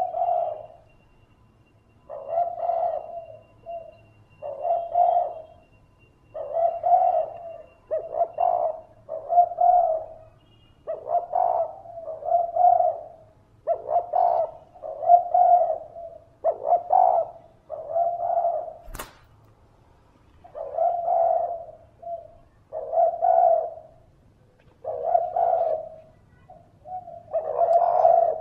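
Spotted dove cooing over and over, a long run of low coos about one every second or two. One sharp click comes about two-thirds of the way through.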